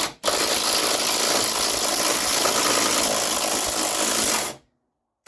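Small cordless impact wrench hammering as it spins out an already-loosened motor mount bolt. A short burst, a brief pause, then a steady run of about four seconds that stops abruptly.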